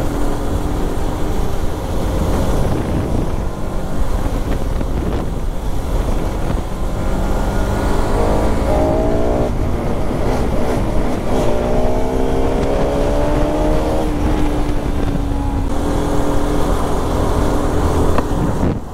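Bajaj Pulsar RS200's single-cylinder engine running under way, with steady wind rush on the microphone. The engine note climbs twice under acceleration around the middle, then falls back near the end.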